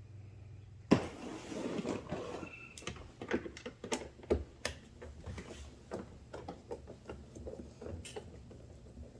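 Screws being taken out of a car door's interior trim by hand: a sharp click about a second in, a brief scrape, then a run of irregular small clicks and taps of the tool and screws.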